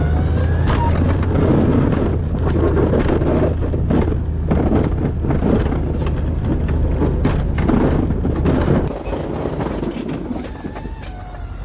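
A vehicle engine running steadily under load, with dense crunching, scraping and knocking of a plow pushing snow over it. The scraping stops suddenly about nine seconds in, leaving the engine running.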